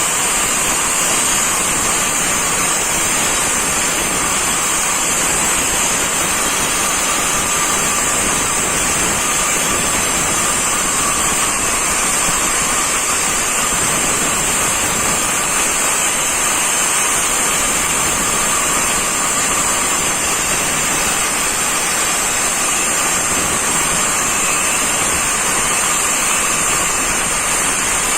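Angle grinder cutting masonry, running continuously: a steady high motor whine over a harsh rushing grind, unchanging in level throughout.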